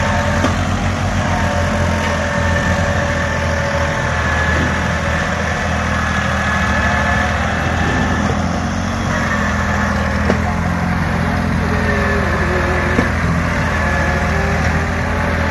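Diesel farm tractor engine running steadily under load, pulling a trailer heaped with earth.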